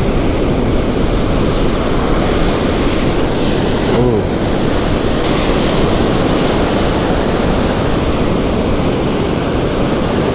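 Ocean surf breaking and washing up over the sand, a steady rush of water.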